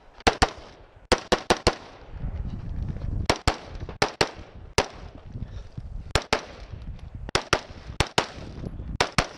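Scoped AR-15-style rifle firing about twenty shots, mostly in quick pairs with a group of four near the start, separated by pauses of about half a second to a second and a half.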